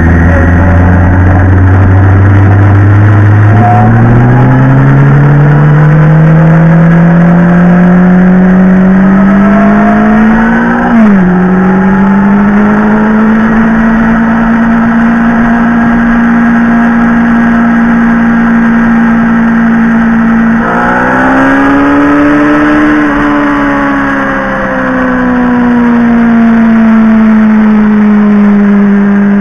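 Motorcycle engine running under way: the revs climb steadily, drop sharply with an upshift and settle at a steady cruise, then rise and fall again later on.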